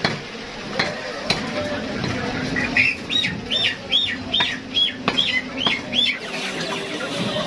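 A large curved knife chopping chicken on a wooden log block, with a few sharp knocks in the first second or so. Then a bird chirps about eight times in a quick run of high, arched notes, about two a second.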